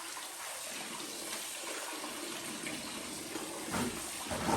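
Water running steadily from a kitchen tap into a sink, with a louder sound coming in near the end.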